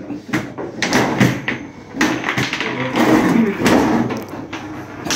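Table football being played fast: a rapid, irregular run of sharp knocks and clacks as the ball, the plastic players and the steel rods strike and slide in the table.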